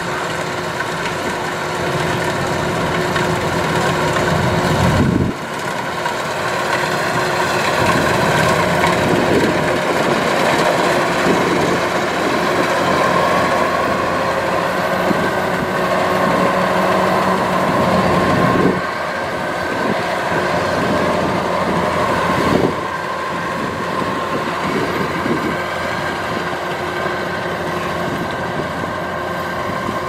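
Kubota DC-93 rice combine harvester running under load as it cuts and threshes rice: steady diesel engine and machinery noise with several held tones. The sound shifts abruptly about 5, 19 and 23 seconds in.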